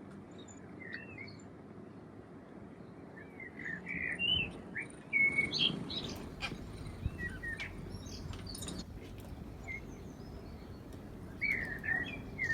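Birds chirping: short, scattered high chirps and calls, busiest around four to six seconds in, with a few more near the end, over faint background noise.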